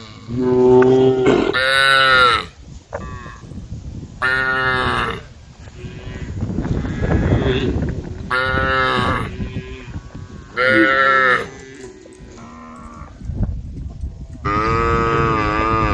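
Cows mooing, about six calls of a second or so each, some higher and some lower in pitch, from more than one animal.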